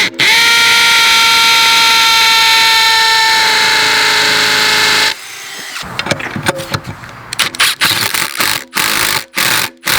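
Hammer drill motor running at a steady high whine for about five seconds, dropping slightly in pitch before it stops. It is followed by irregular clatter and knocks with a couple of brief short runs of the motor.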